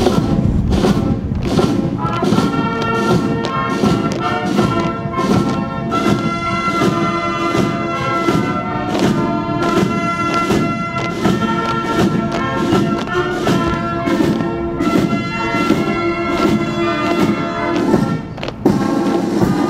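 March music played by a military band on wind and brass instruments, long held notes over a steady marching beat. It breaks off briefly near the end and starts again.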